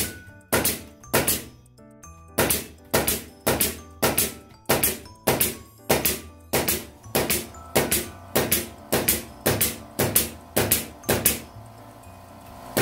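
Pneumatic ST64 concrete nailer firing DT64 nails in rapid succession, a sharp bang about twice a second with a brief pause early on and a longer one near the end.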